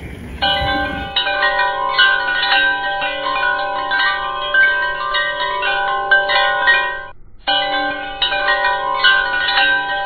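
Background music of bell-like chiming notes, struck in a quick overlapping pattern; it stops briefly about seven seconds in and starts over.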